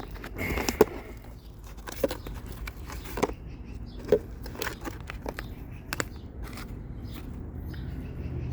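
Garden plants being picked by hand: irregular sharp snaps of stems breaking and rustling of leaves, several snaps a second or so apart.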